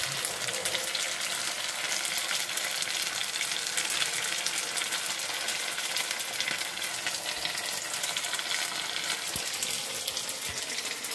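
Sliced sausage with ham sizzling in a frying pan on a stovetop: a steady hiss full of small crackles and pops.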